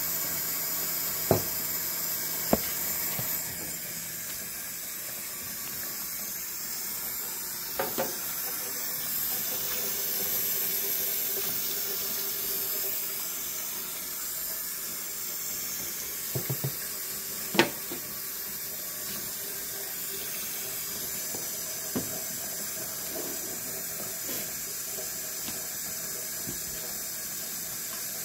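Kitchen faucet running into a stainless steel sink while dishes are rinsed, a steady stream of water. Several sharp knocks and clinks of dishware against the sink, the loudest about two-thirds of the way through.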